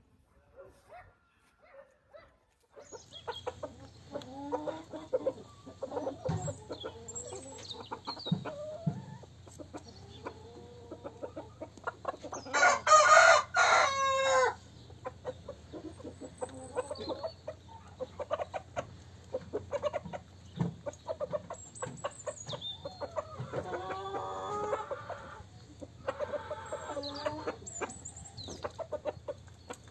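Chickens clucking and calling, with a rooster crowing loudly once about halfway through and a quieter crow later on.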